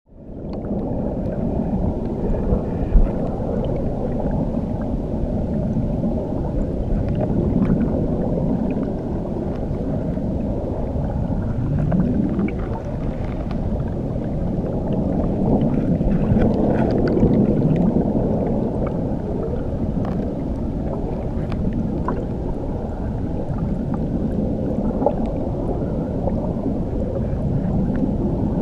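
Muffled underwater rumble of water churning beneath a waterfall, heard as a dense low wash with slow wavering swells and faint scattered ticks. It rises quickly out of silence at the start.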